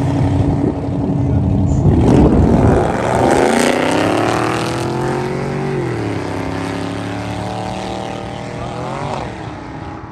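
Drag cars, among them a Fox-body Mustang, idling at the start line, then launching at full throttle about two seconds in. The engines rev up through the gears, with a sharp drop in pitch at shifts near six and nine seconds, and fade as the cars run away down the track.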